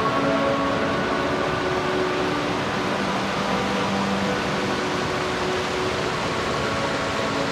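Rushing mountain creek: a steady roar of whitewater tumbling over rocks.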